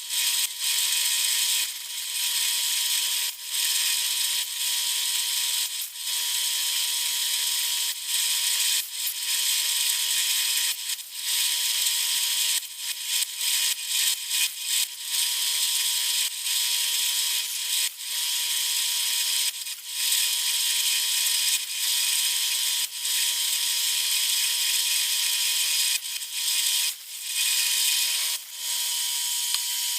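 Milling machine cutting metal: a steady, high-pitched cutting hiss over a constant whine, broken by many short dips.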